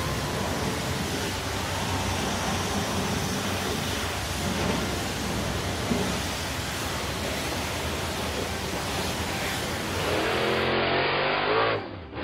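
Steady hissing spray of a cartoon car-wash foam nozzle. About ten seconds in, a vehicle engine revs with a falling pitch, then cuts off sharply just before the end.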